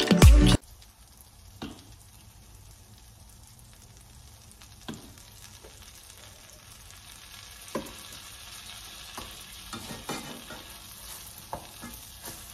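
Background music cuts off about half a second in, leaving a pancake and corned beef hash frying in two skillets: a steady low sizzle with a few scattered clicks and taps of utensils against the pans.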